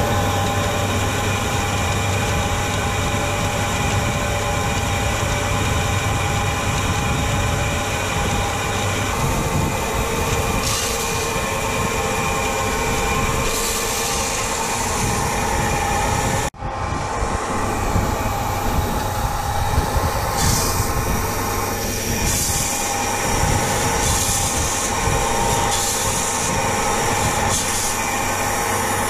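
Massey Ferguson 399 tractor's diesel engine running steadily under way, with a steady low hum and rattling over it. The sound breaks off for an instant about sixteen seconds in, then carries on the same.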